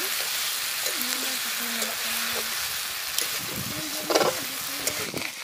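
Sliced onion, tomato, green chilli and egg sizzling steadily in oil in a metal wok, stirred with a metal spatula that clicks and scrapes against the pan a few times.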